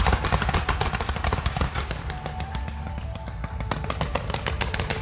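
Fireworks display: a dense barrage of crackling pops and bangs over a low rumble. It thins out in the middle and picks up again a little before four seconds.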